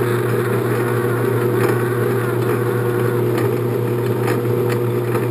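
Late-1950s 10-inch Sheldon lathe running steadily under power with a constant hum, during a light thread-cutting pass on PVC with the half nut engaged. A few faint ticks come through from about a second and a half in.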